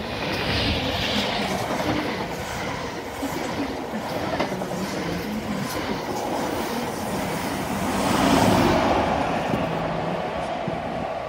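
Mark 3 passenger train, led by a driving van trailer and propelled by a Class 90 electric locomotive at the rear, running through the station without stopping. The wheels rumble and clatter over the rail joints, loudest about eight and a half seconds in as the locomotive goes past.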